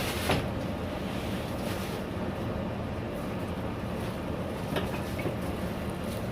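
Steady low background hum, with a few faint handling clicks.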